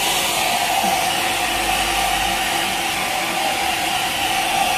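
Hand-held hair dryer running steadily: a constant rush of blown air with a steady motor whine.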